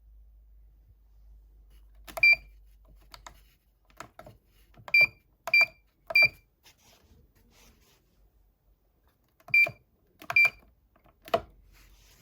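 Buttons being pressed on a siren amplifier's control head, about seven presses at uneven intervals, each a click with a short high beep.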